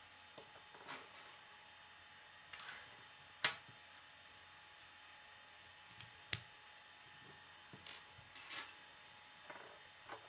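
K'nex plastic connectors being pressed and snapped together in the hands: scattered light plastic clicks and brief rattles, with two sharper clicks about three and a half and six seconds in.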